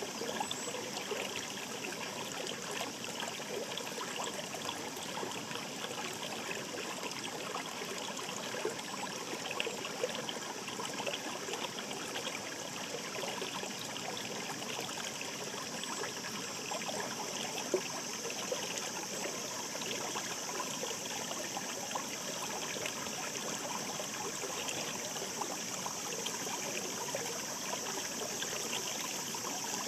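A stream babbling steadily, with a continuous rush of water and many small trickles and splashes, a few of them briefly standing out.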